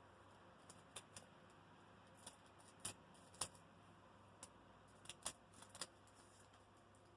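Foil Pokémon card booster pack being opened and its cards handled: faint scattered crinkles and clicks, the sharpest about three and a half seconds in and a small cluster near the end.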